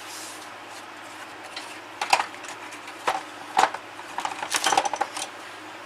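Metal hand tools clinking: a socket wrench and socket being handled, with a few sharp clinks and then a quick run of metallic clatter.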